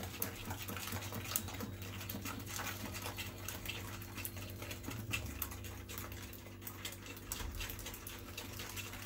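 Wire whisk beating a runny egg, sugar and oil batter in a ceramic bowl: quick, irregular clicking and scraping of the wires against the bowl, over a steady low hum.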